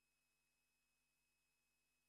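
Near silence: the broadcast sound is all but muted, leaving only a faint steady hiss.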